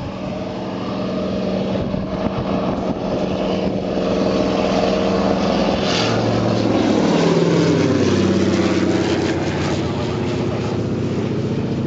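Single-engine propeller firefighting plane flying low overhead. Its engine drone grows louder as it comes in, then drops in pitch as it passes over, about seven to nine seconds in.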